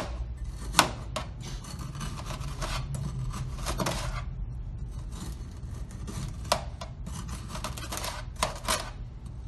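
Metal straightedge shaving soil from the face of a compacted Proctor soil specimen into a metal pan: a run of rasping scrapes, with a few sharp clicks.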